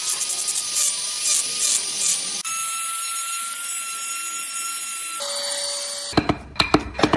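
Tools working wood: short scraping strokes, then steady hissing with a high thin whine, broken by abrupt cuts. Music with a quick beat comes in about a second before the end.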